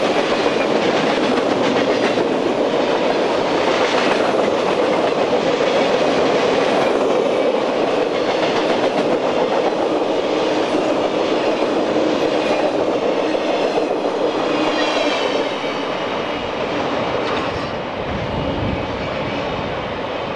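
Freight train cars rolling past close by: a steady rumble of steel wheels on rail with the clickety-clack of rail joints, and a faint high wheel squeal in the middle. About three-quarters of the way through, it drops to a quieter, lower rumble.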